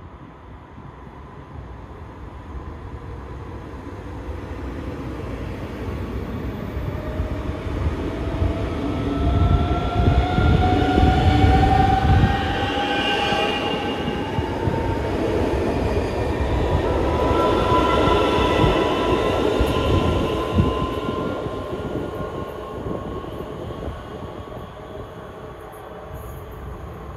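Øresundståg electric multiple units passing close by, with heavy wheel-and-track rumble that builds to its loudest in the middle and then falls away. Twice the traction motors give a whine that rises steadily in pitch.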